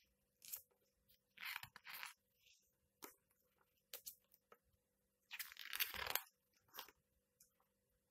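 Pages of a large hardcover comic book being turned by hand: short crisp rustles and crinkles of the paper, with one longer, louder rustle of a page sweeping over about five to six seconds in.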